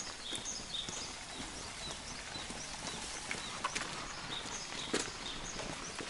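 Footsteps of a hiker walking on a wet paved road, irregular knocks over a steady wet hiss. A bird calls repeatedly with short high chirps.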